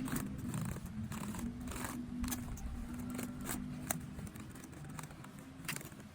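Cloth wiping and rubbing over a laptop's casing, with scattered light scuffs and small clicks, over a low steady hum that fades out about four seconds in.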